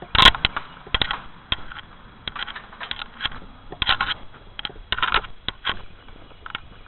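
Irregular clicks and short scrapes of equipment being handled, several sharp ones in the first second and a cluster around four to five seconds in.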